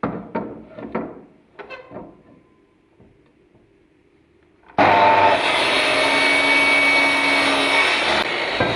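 A few short scraping knocks, then a power tool starts abruptly about halfway through and runs loud and steady.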